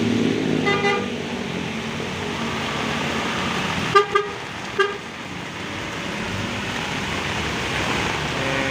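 An intercity bus's engine running as it drives past through heavy rain, with rain and wet-road hiss throughout. Short vehicle horn toots come under a second in and twice more, loudest, about four and five seconds in.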